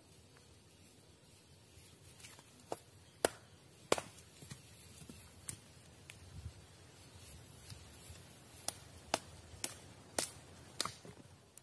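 Machete blade chopping and shaving a wooden stake held upright: a run of irregular, sharp wooden chops, a few much louder than the rest.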